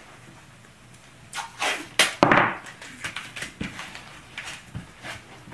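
Blue painter's tape ripped off the roll in a few quick rasping pulls, loudest about two seconds in, followed by light taps and rustles as it is pressed down.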